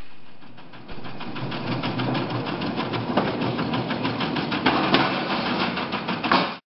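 Can seaming machine closing square tin cans: a steady, rapid mechanical clatter of about eight ticks a second. It drops away briefly and picks up again with a click about a second in, then stops abruptly near the end.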